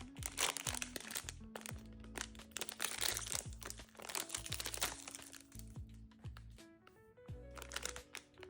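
Blind box packaging being opened by hand, crinkling and crackling in quick irregular bursts over soft background music.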